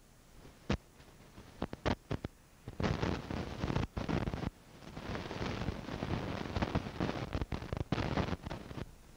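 Wind buffeting the microphone in irregular gusts, building from about three seconds in, with a few sharp clicks in the first two seconds.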